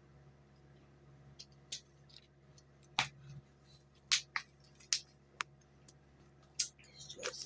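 A string of sharp clicks and taps, about eight spread unevenly, the loudest about three seconds in, over a faint steady low hum.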